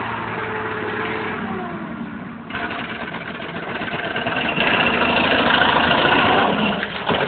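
Toyota 4x4's engine running under throttle on a loose dirt track, its note falling in the first two seconds, then picking up sharply and growing louder as the truck drives in close.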